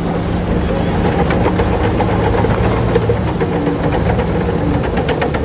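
Heavy diesel earthmoving machine's engine running steadily, with a rapid run of short clicks or rattles over it that comes thickest near the end.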